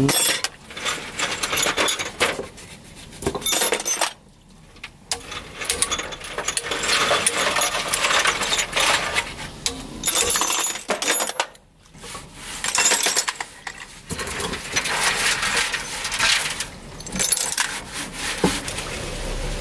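Irregular runs of metallic clinks and taps from hand tools on the valve train of a Kia straight-six engine's cylinder head, as valve springs are pressed down with a socket and the small valve parts are knocked loose. There are a couple of brief pauses.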